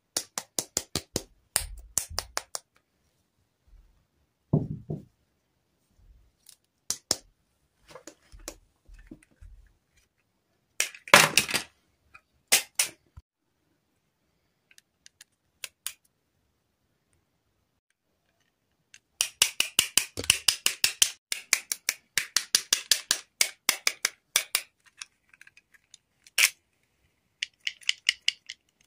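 Plastic dolls and doll clothes being handled: scattered clicks and short rustles, a louder rustle about eleven seconds in, and a long run of rapid clicking in the second half.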